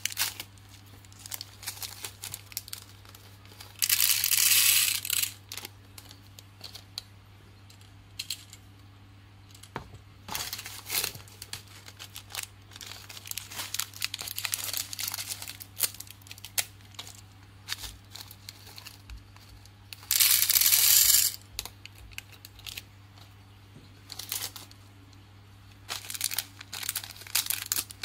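Small plastic candy bags crinkling and being torn open, and tiny candy beads poured with a rattling rush into the compartments of a plastic toy vending-machine candy dispenser. There are two louder bursts, about four seconds in and about twenty seconds in, amid scattered small clicks, over a low steady hum.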